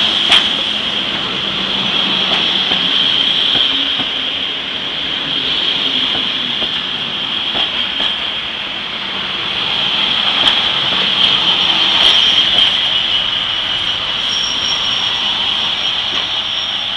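Railway passenger coaches rolling slowly past with a steady, high-pitched squeal from their steel wheels, broken by a few sharp clicks over the rail joints.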